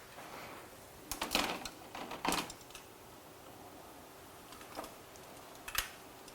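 A few sharp clicks and knocks of metal seat hardware being handled: a quick cluster about a second in, another just after two seconds, and single knocks near the end.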